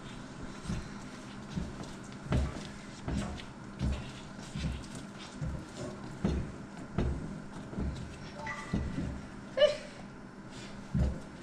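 Stiff maize-meal pap being stirred in a large pot, the spoon thudding against the pot in a steady rhythm of a little more than one stroke a second, with one sharp knock near the end. A steady low hum runs underneath.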